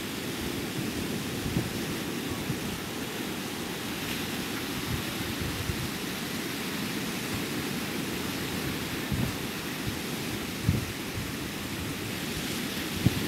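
Ocean surf breaking and washing onto a beach as a steady rush of noise, with a low rumble of wind on the microphone and a few brief thumps.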